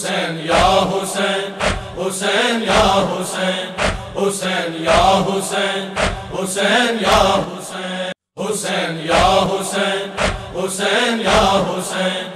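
Noha introduction: a chorus of voices chanting over a steady low drone, with deep rhythmic thumps about once or twice a second, as in matam chest-beating. The sound cuts out for a moment about eight seconds in.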